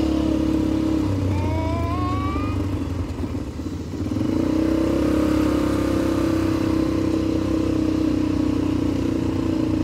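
ATV (quad bike) engine running while being ridden. About a second in the engine eases off and drops in pitch, then picks back up around four seconds in and holds a steady drone.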